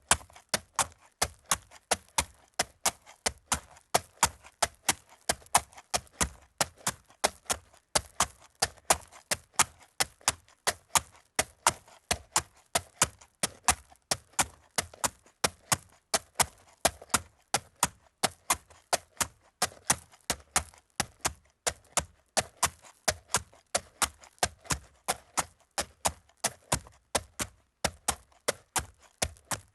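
A horse walking on gravel: its hooves strike the gravel one after another in a steady, even rhythm of sharp footfalls.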